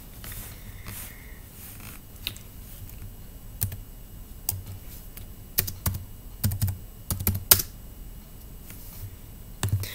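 Typing on a laptop keyboard: irregular key clicks, sparse at first and bunched together between about five and eight seconds in.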